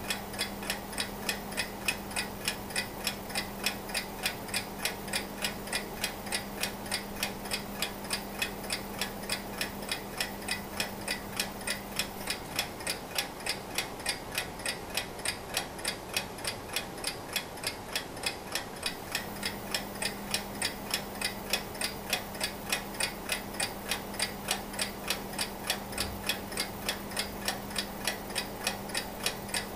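Antique Junghans mechanical alarm clock, made in Germany in the 1920s–30s, ticking steadily in an even rhythm.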